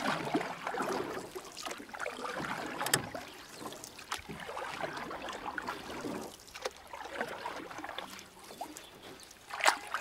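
Water splashing and sloshing in an uneven wash, with sharp splashes about three seconds in and again near the end.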